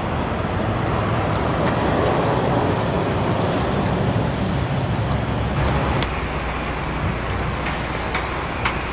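Steady rumble of road traffic in the city, changing character about six seconds in, with a few short clicks near the end.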